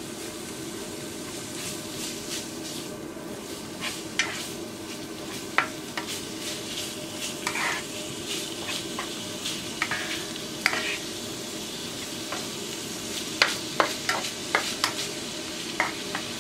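Ground meat sizzling steadily as it browns in a frying pan, stirred with a spatula that taps and scrapes against the pan now and then, most often near the end.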